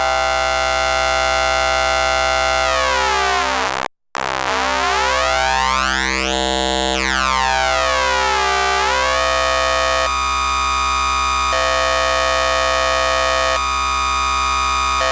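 Eurorack modular synthesizer: a triangle wave bit-crushed by a Doepfer A-189-1 bit modifier and run through a resonant high-pass filter, giving a steady, buzzy, many-overtoned tone. About four seconds in it cuts out for a moment. Its overtones then sweep up and down against each other for a few seconds before settling, and near the end the timbre steps between settings several times.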